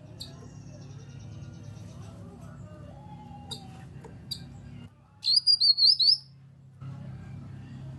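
Cucak kinoi birdsong: scattered sharp chirps and a thin, fast high trill, then, about five seconds in, a loud burst of about six quick rising-and-falling whistled notes. A steady low hum runs underneath.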